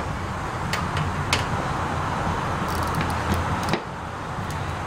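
Workshop background noise: a steady low hum with about four short, sharp clicks, the last a little before the end.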